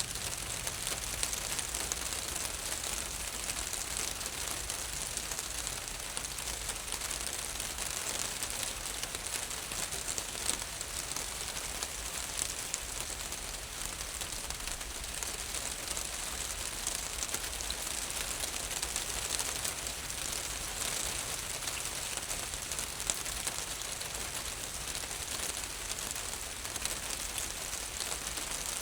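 Steady rain falling on a roof, a dense even patter of drops.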